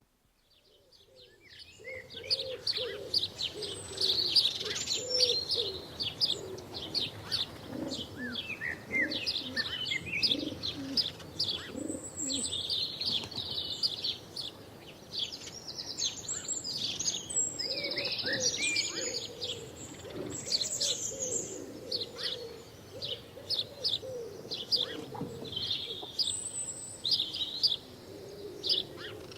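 House sparrows chirping: a dense run of rapid, overlapping high chirps, fading in over the first two seconds, with a lower, wavering sound underneath throughout.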